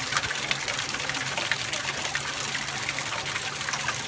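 Water running and splashing steadily in a penguin pool, with many small spatters throughout.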